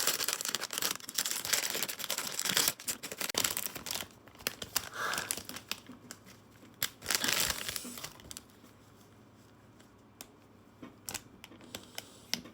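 Blind-box packaging being opened: crinkling and tearing, busiest over the first four seconds, with two more bursts of crinkling about five and seven seconds in, then only scattered light clicks of handling.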